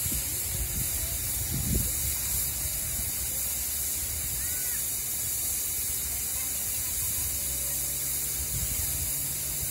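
TechnoAlpin snow lance making snow, its nozzles spraying water mixed with compressed air in a steady, high hiss.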